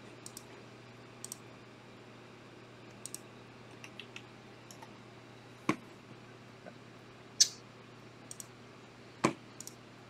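Computer mouse and keyboard clicks, scattered and often in quick pairs, with a few louder, sharper clicks in the second half, over a faint steady low hum.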